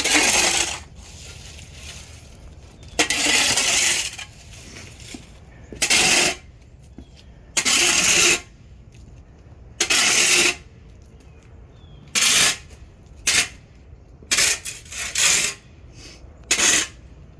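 A sidewalk being scraped with a blade: about a dozen short scraping strokes, a couple of seconds apart at first and coming quicker near the end, as dirt is cleared off the pavement.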